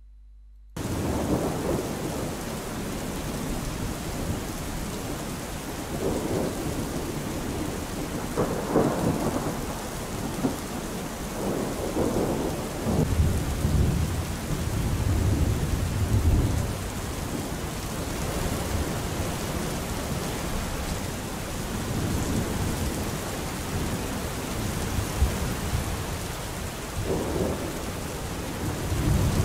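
Storm-like ambient sound effect that cuts in suddenly about a second in: a steady rushing hiss, with deep rumbles swelling and fading every few seconds.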